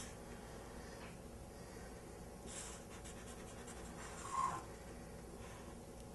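Felt-tip marker drawing on paper: faint scratching strokes as the lines are inked, with one brief louder squeak a little past four seconds in.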